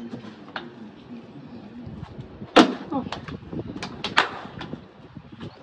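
A small plastic water bottle being flipped and knocking down onto a wooden table: one sharp hit about two and a half seconds in, then a quick run of lighter knocks.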